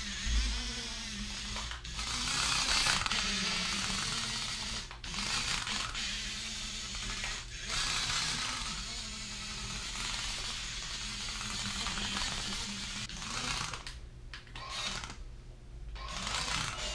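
Small electric drive motors of a remote-control toy speeder bike whirring as it is driven around, in spurts with short drops. The sound fades low for a couple of seconds near the end.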